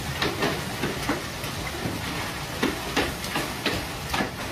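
Heavy hail and rain coming down in strong wind: a steady rushing noise with irregular sharp knocks, a few a second, of hailstones striking hard surfaces close by.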